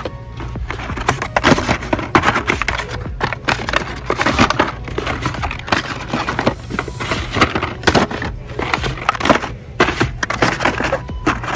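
Hot Wheels blister-pack cards being flipped through and knocked together in a cardboard display bin: a rapid, irregular clatter of plastic bubbles and card stock.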